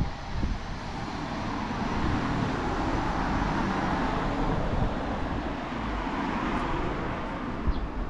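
A vehicle passing by: a rushing noise that swells over the first few seconds, peaks around the middle and fades toward the end.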